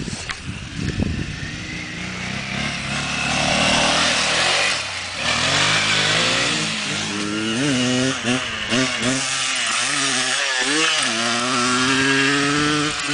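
Enduro dirt bike engine revving hard as the bike rides off across rough grass, its pitch climbing and dropping again and again with the throttle and gear changes from about halfway in.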